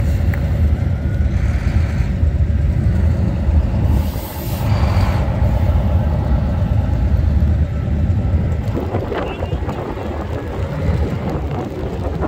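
Steady low rumble of road vehicles, dipping briefly about four seconds in.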